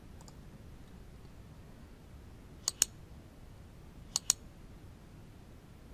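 Mouse-click sound effects of an animated subscribe-button overlay playing back: two quick double clicks about a second and a half apart, over a faint steady hiss.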